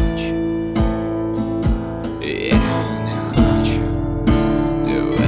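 Band music in an instrumental passage: strummed guitar over a steady beat, with no singing.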